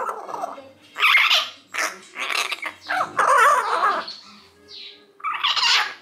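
Young common hill myna giving about five harsh, voice-like calls in quick succession. It is imitating its owner's scolding "Leo!" and "Kora!" in a slightly angry tone.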